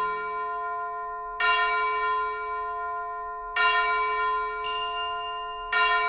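Background music of bell-like chimes: one ringing chord struck three times, a couple of seconds apart, each note ringing on and fading slowly, with a lighter high ping between the last two strikes.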